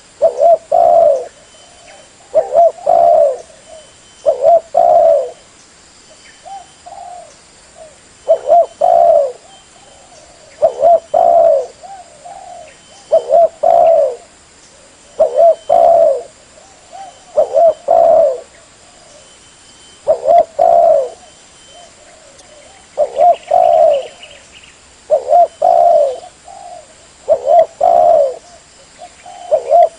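Spotted dove (tekukur) cooing: a lure-call recording of a low, repeated phrase of two or three coos, about once every two seconds. A faint steady hiss lies underneath.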